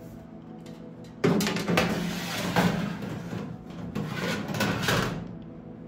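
Thin metal oven drip tray being handled and slid into the bottom of a countertop oven, scraping and rattling for about four seconds.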